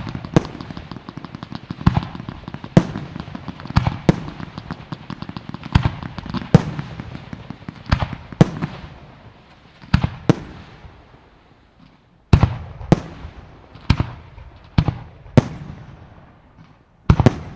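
Aerial fireworks firing and bursting overhead: a running series of sharp bangs, roughly one to two a second, with crackle and hiss between them. The firing pauses briefly about eleven seconds in, then resumes with a loud bang and carries on, ending with a quick double bang.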